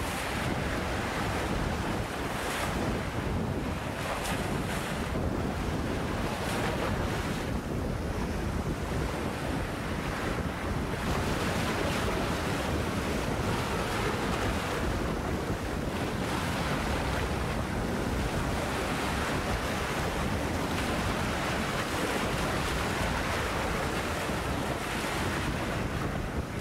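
Choppy bay waves breaking and washing over large shoreline boulders in a steady, surging wash, with wind gusting across the microphone.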